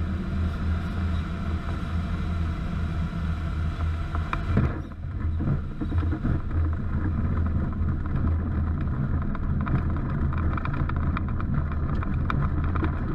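Airflow rushing over the cabin of a Kitfox light aircraft gliding in with its engine stopped. About four and a half seconds in, a knock as the wheels touch down, then a rumble with many small knocks and rattles as the aircraft rolls over grass.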